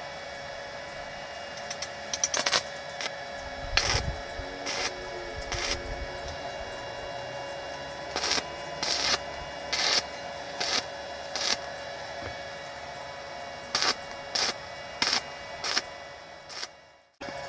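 Stick-welding arc crackling in short bursts as the electrode is struck against square steel tube to make tack welds; each burst lasts under half a second and they come in several runs, over a steady hum.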